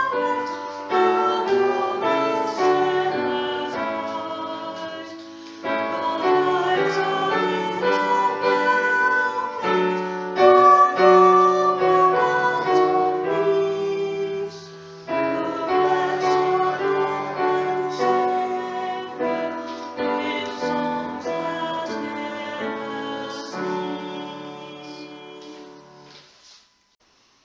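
Hymn tune played on piano in phrases, each starting with a strong chord and fading; the last chord dies away near the end as the hymn finishes.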